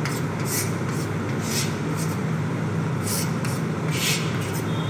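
Chalk scratching on a blackboard in about six short strokes as straight lines are drawn, over a steady low hum.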